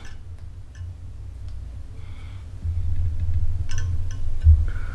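Low, uneven rumble of handling noise, growing louder past the middle, with a few faint light clicks as hands work at a fly-tying vise.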